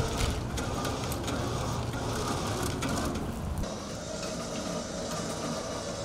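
Scattered metallic clicks and rattles from the hand winch on a log trailer's lifting frame, over a low rumble. A little past halfway the sound cuts off abruptly to a steady faint hum.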